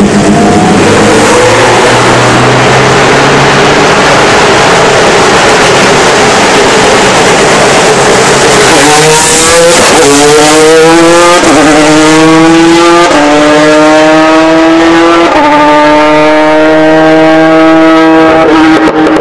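Ferrari F430 GT2 race car's V8 engine very loud and close, passing about nine seconds in. It then accelerates away through about five upshifts, each a climbing engine note that drops back to a lower pitch at the shift.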